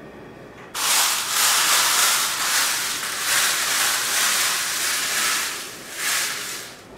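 Loud hiss of a grease fire burning in a frying pan on a stovetop. It starts suddenly about a second in and surges again near the end.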